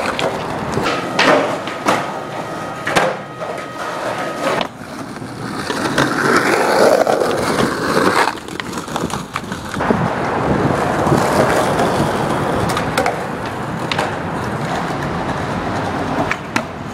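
Skateboard wheels rolling over rough concrete, broken by several sharp clacks of the board popping and landing during tricks.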